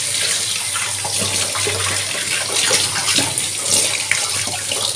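Kitchen tap running into a steel sink, the stream splashing over stainless-steel vessels as a cup is rinsed under it. Light clinks of the steel utensils sound through the running water.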